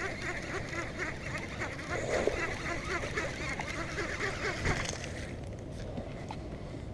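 Baitcasting reel being cranked to bring in a hooked largemouth bass. It makes a rapid ticking whir that stops about five seconds in.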